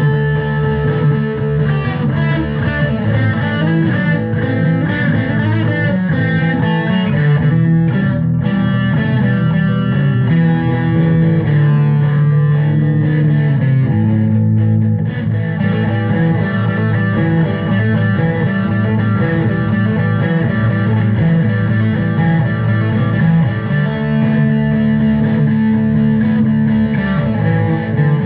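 Background music with guitars: electric guitar and bass, in a rock style.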